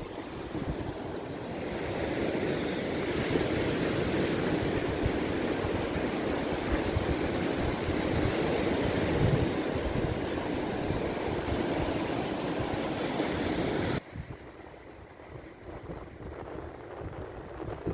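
Black Sea surf washing on the shore, with wind buffeting the microphone. About fourteen seconds in the sound drops suddenly to a quieter, duller surf.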